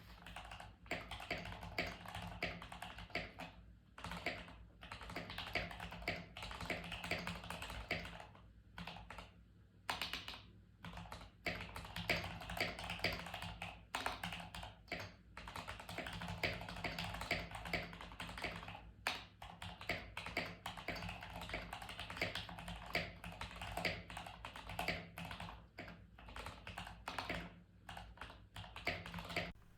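Fast continuous typing on a Keychron K8 Pro mechanical keyboard with stock, unlubed Gateron G Pro Brown tactile switches: rapid key clicks and clacks in bursts, broken by a few brief pauses.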